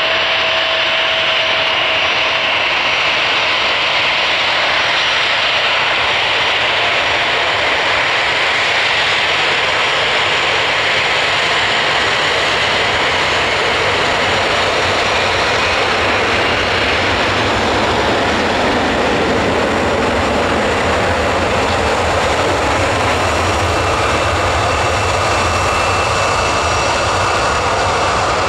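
Airliner jet engines: an Airbus A321 taxiing close by and an Embraer E-170 powering up for its takeoff roll. A steady, loud whine with a few high tones, and a deep rumble that grows in the second half.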